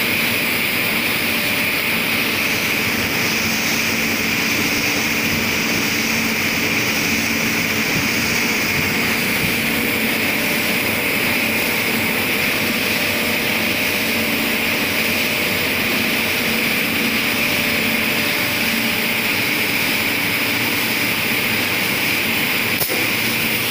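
Heidelberg sheet-fed offset press running while it coats sheets: a continuous, even machine noise with a steady hiss and a faint hum.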